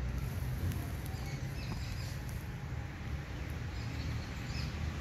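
Steady low rumble of wind on the microphone, with faint short chirps of small birds scattered through it.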